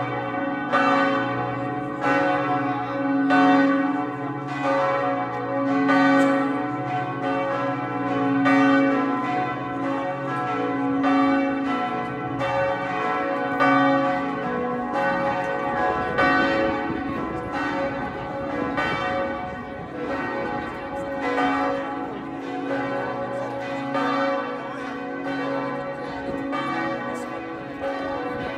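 Three swinging church bells, bells 2, 3 and 4 of the tower's peal, ringing together in a partial peal. Their strokes come again and again and overlap, each leaving a long ringing tone.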